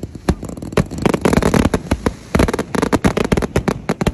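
Fireworks going off: a rapid, irregular string of sharp bangs and crackles, densest in the middle.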